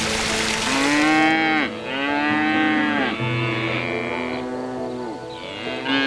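A cow mooing: two drawn-out calls that rise and fall in pitch, and a third starting near the end. A rushing, water-like noise fades out in the first second or so, and background music runs underneath.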